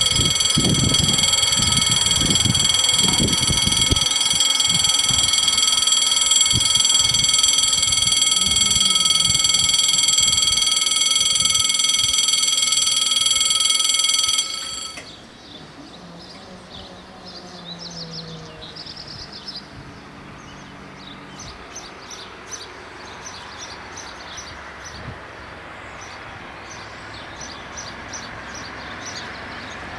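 Electronic warning bells of a French level crossing ringing a loud, steady tone as the crossing activates for an approaching train. They cut off suddenly about halfway through, while the barriers are coming down.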